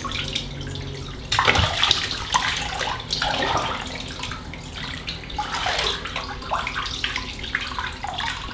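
Water poured from a plastic cup over a puppy and splashing into a bathtub of soapy water, with irregular sloshing and splashes as she moves about. The loudest splash comes about a second in.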